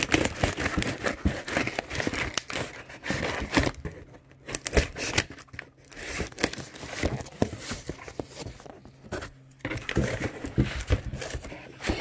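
Scissors cutting into a cardboard shipping box, with crinkling, tearing and rustling of the cardboard and tape as the box is handled and pulled open. An irregular run of snips, scrapes and crackles with a couple of short pauses.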